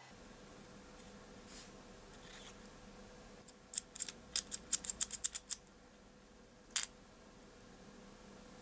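Rapid run of small, sharp plastic clicks, about a dozen in under two seconds starting around the middle, then one more click a second later, as a black plastic ring is worked off the lens barrel of a Sony DSC-W830 compact camera.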